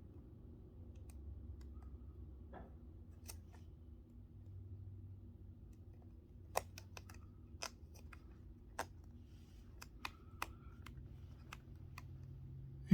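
3M Scotch Extreme Strong interlocking fastener strips snapping as they are pressed together: a scattering of sharp, separate clicks, most of them in the middle of the stretch, over a faint low hum.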